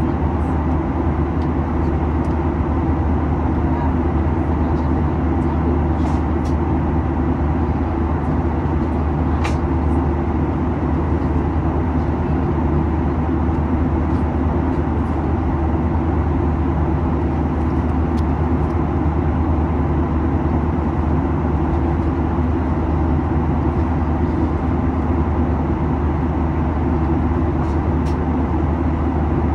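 Steady cabin noise inside a Boeing 737-800: the deep, even rumble of its CFM56 engines and the airflow, with a faint steady hum. A couple of faint clicks come early and about a third of the way in.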